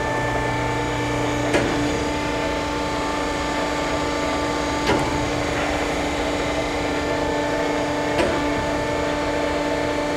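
Swisher Mark V vertical-spindle sweeping-head surface grinder running its automatic sweep cycle: a steady machine hum with a few constant tones, broken by a sharp click roughly every three and a half seconds, about three times.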